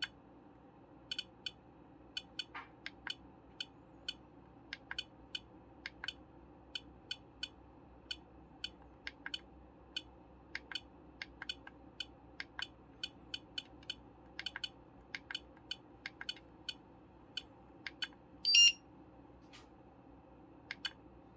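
Short sharp clicks at an uneven pace, one to three a second, as the buttons of a GT Power V6 intelligent charger are pressed to step through its menus. Near the end the charger gives one loud beep, its warning that the input voltage is lower than the setting.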